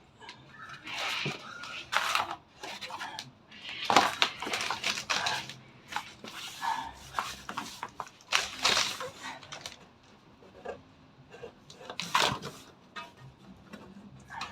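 Hand-handling noise under the front bumper of a 2010 VW Beetle: irregular rustling and scraping with several sharp plastic clicks and knocks, made while fingers push in the left turn signal housing's retaining clip to pop the housing out.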